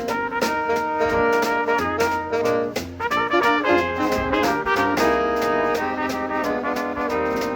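Brass band of trumpets and trombone playing a jazzy Christmas tune over a steady drum beat.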